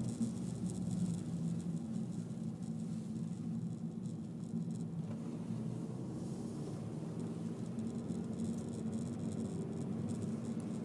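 Steady low drone of a Honda Civic 1.8 i-VTEC's four-cylinder engine and tyres, heard from inside the cabin as the car drives on. A faint light ticking and crackle rides high above it.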